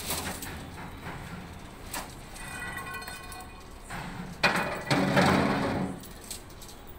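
Steel lifting chains clanking against a bundle of steel rebar as the chain hooks are handled, with a sharp hit about four and a half seconds in and a loud metallic clatter lasting about a second after it. A brief pitched ringing sound comes a couple of seconds in.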